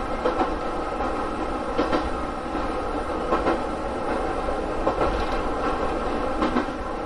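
Ichibata Electric Railway 5000 series (ex-Keio 5000) electric train running, heard from inside the driver's cab: a steady running hum with the wheels clicking over rail joints in pairs about every one and a half seconds.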